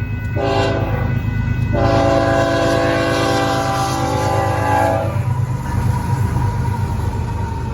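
BNSF freight locomotive's multi-chime air horn sounding a short blast, then a long blast that stops about five seconds in, over the steady low rumble of the train's diesel engines.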